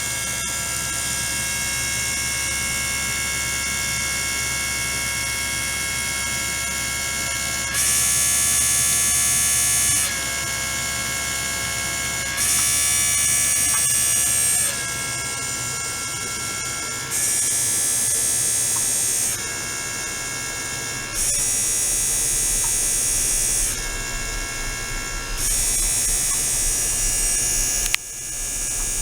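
Ultrasonic tank with a small circulating pump running: a steady buzz of many fixed tones. Five times a louder, hissier stretch of about two seconds comes in and drops away, in keeping with the pump's on/off flow control.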